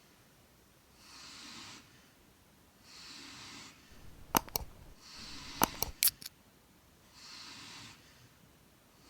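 Four-month-old German Shepherd puppy snoring in its sleep: four breathy snores, about one every two seconds. A few sharp clicks come near the middle and are the loudest sounds.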